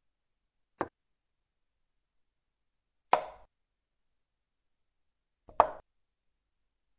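Chess software's move sound effect, a short plop-like click of a piece being set down, heard three times, once for each move played on the on-screen board. The first click is softer than the other two.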